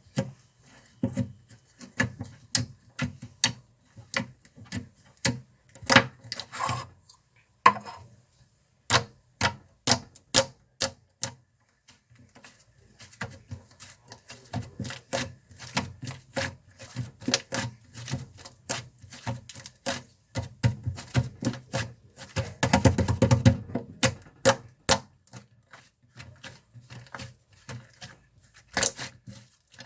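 Cream slime being pressed and squished by hand, giving a run of sharp, irregular clicks and pops, with a denser crackling stretch a little past the two-thirds mark.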